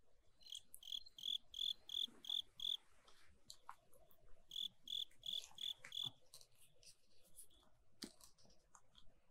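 Insect chirping: a high, even chirp about three times a second in two runs, with a few light clicks and one sharp tap about eight seconds in.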